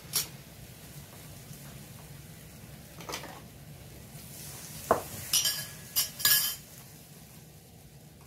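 Tongs, dishes and cups clinking and knocking around a tabletop electric grill-and-hotpot cooker. The knocks are scattered, with a cluster of sharp ones about five to six and a half seconds in.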